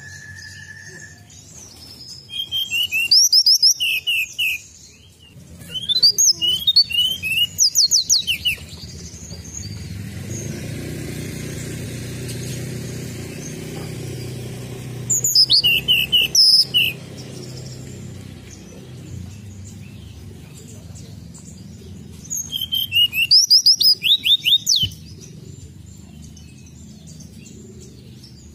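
Tledekan gunung (a blue flycatcher) singing in four bursts of rapid, high chirping notes, with pauses between them.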